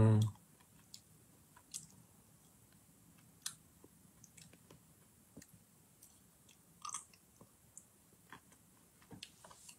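Faint mouth noises and soft clicks close to a phone microphone, scattered a second or two apart over a quiet room background, with a slightly louder one about seven seconds in.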